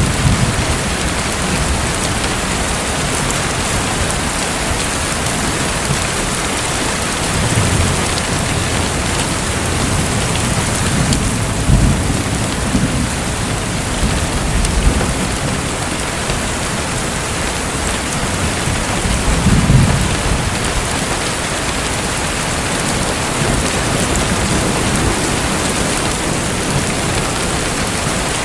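Steady rain falling, with low rumbles of distant thunder a few times.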